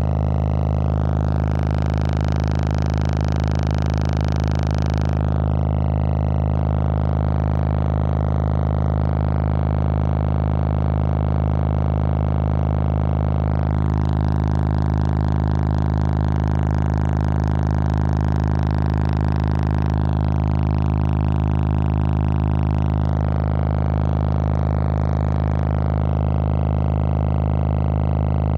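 Three 15-inch Slapz Audio Oblivion car subwoofers playing a 26 Hz test tone at full power for about 30 seconds: a loud, steady, deep drone with buzzing overtones, held without a break. It is a bass burp for a voltage test, and the car's electrical system sags only to 13.2 volts under the load.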